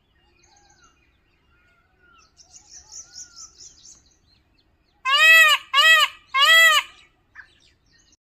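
Birds calling: a quick run of faint, high chirps, then three loud calls with a rise and fall in pitch, one after another, starting about five seconds in.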